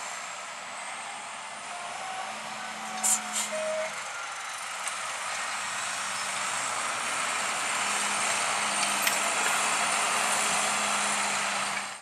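John Deere 7530 tractor's six-cylinder diesel engine working under load as it pulls a five-furrow reversible plough, growing louder as it passes close by. A couple of sharp knocks come about three seconds in.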